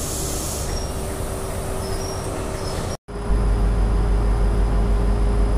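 A train standing at a station platform with a steady hum and hiss. After a sudden cut, a CrossCountry HST's Class 43 power car idles at the platform, its MTU diesel giving a loud, steady deep drone.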